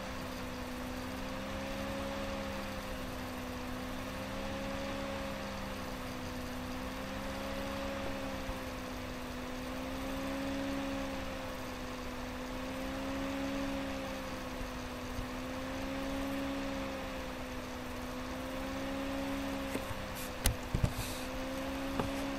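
Steady machine hum of a few low tones that waver slowly, about every three seconds, over a faint hiss. A few clicks come near the end.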